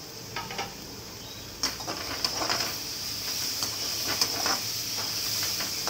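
Vegetables sizzling in hot oil in an aluminium kadhai while a slotted metal spatula stirs them. From about a second and a half in come repeated scrapes and knocks of the spatula against the pan.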